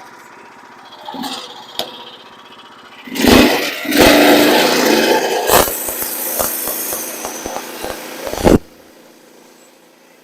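The portable sawmill's small petrol engine starts suddenly about three seconds in and runs loudly with crackling clicks, then cuts off abruptly after about five seconds.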